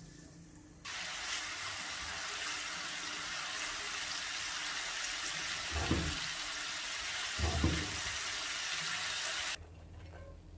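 Flour-coated chicken pieces deep-frying in hot oil in a wok: a steady sizzle that starts suddenly about a second in and stops suddenly near the end. Two dull knocks come midway as the pieces are stirred.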